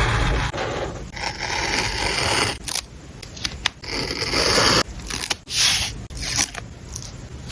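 Paper craft materials being handled while a journal spread is laid out: a series of dry scraping and rustling noises, some brief and some a second or more long.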